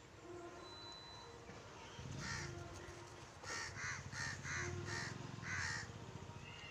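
Crows cawing: one harsh caw, then a quick run of about six caws in the second half. A low rumble runs underneath from about a third of the way in.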